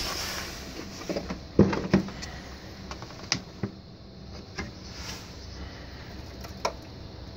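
Scattered clicks and knocks from hands handling the reels and wiring inside an opened 1984 Merkur slot machine. The two loudest knocks come a little over one and a half seconds in, with a faint steady hum underneath.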